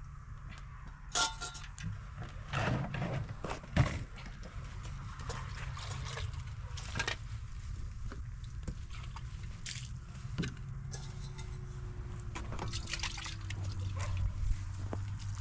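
Water poured from a container and splashing onto stony ground in short spells, with a few sharp knocks and clinks of pots and containers, over a steady low background rumble.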